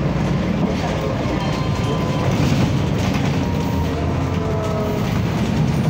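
Horizontal inline-six turbo-diesel engine (Mercedes-Benz OM447hLA) of a 1998 Mercedes-Benz O405N2 city bus running steadily under way, heard from inside the cabin along with interior rattles. A faint whine rises slightly in pitch around the middle.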